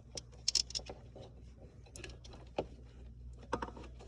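Scattered faint clicks and taps from handling the winch wiring and terminals, over a low steady hum.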